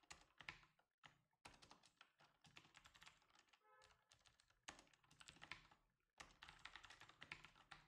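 Faint typing on a computer keyboard: quick runs of key clicks broken by brief pauses.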